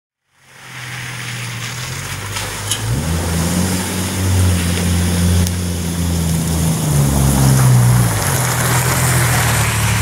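Jeep Wrangler TJ engine driving up the gravel track toward and past, growing louder as it nears. The engine note steps up about three seconds in, then climbs and drops back about eight seconds in.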